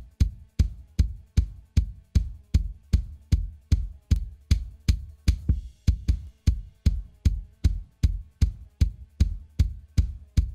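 A lone bass drum playing a steady beat of about two and a half hits a second, each a sharp click on top of a low thump. It is heard through a multiband compressor with only its low and high bands soloed, the high band crushed with fastest attack, highest ratio and maximum compression and then boosted 12 dB.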